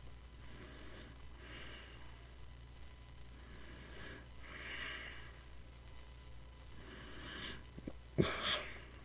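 A man's breathing close to the microphone, a soft breath every two to three seconds, over a low steady hum. A sharp knock sounds about eight seconds in, the loudest sound.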